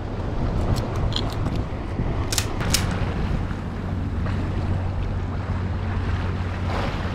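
Steady wind and sea noise with a low, even drone underneath. A few faint ticks come about a second in, then two sharp clicks close together about two and a half seconds in.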